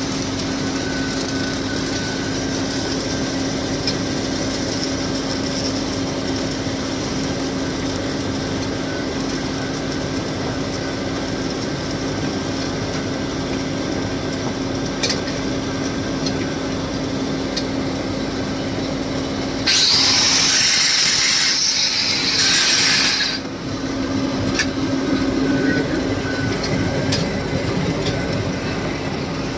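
Steady hum of pipeline welding and heating machines under continuous crackle, typical of a stick-welding arc. About twenty seconds in, a louder high hiss lasts some three and a half seconds, then stops.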